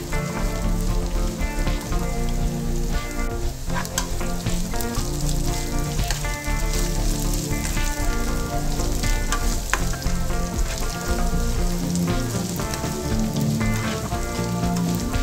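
Bitter gourd pieces sizzling as they fry in oil in a nonstick pan, stirred with a metal spoon that clicks against the pan now and then. Instrumental background music plays under it.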